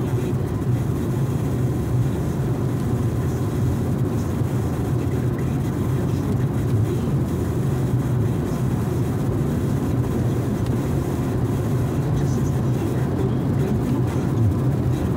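Steady road and engine noise inside a moving car's cabin, a low, even rumble with no change in pace.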